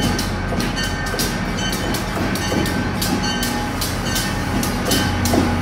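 Shore Line East diesel locomotive pulling slowly into the station, its engine running with a steady low drone while its bell rings steadily, about two to three strokes a second.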